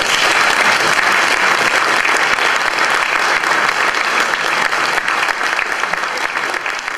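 Audience applauding, a dense steady clapping that starts right after the last guitar notes and eases slightly near the end.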